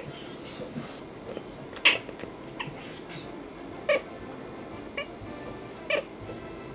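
Siamese-pointed cat giving about five short, clipped chirps a second or two apart while staring out a window, the kind of chirp a cat makes at a bird it can see but not reach.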